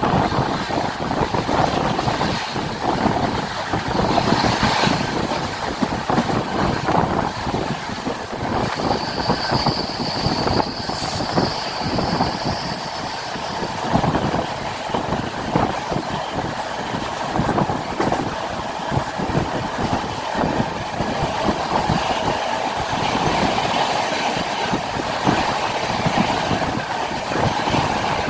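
Passenger train running on the rails, the wheels clicking and rumbling over the track, with a high steady wheel squeal lasting a few seconds about nine seconds in.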